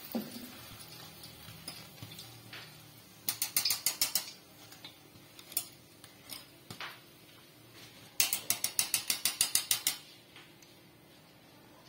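Wire-mesh spider strainer and a metal fork clicking and rattling against each other and the wok, in two quick runs of taps about eight a second, the second run longer, with a few single clicks between. The taps shake oil off freshly fried cakes.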